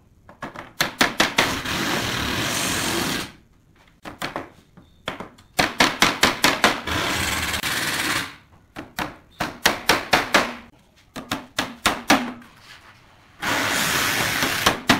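Hammer driving nails into pallet-wood slats: three runs of sharp strikes that come faster and faster, each ending in about a second of continuous, even clatter.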